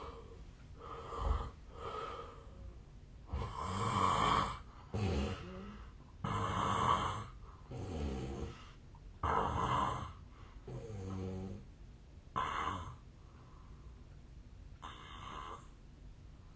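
A man snoring in his sleep: a run of snores of uneven length with short, irregular pauses between them. The snorer himself suspects a long-standing sleep disorder behind his snoring.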